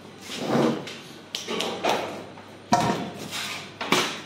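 A few sharp knocks about a second apart, each ringing briefly: cored zucchini and kitchen things being set down against a stainless steel bowl and a large aluminium pot.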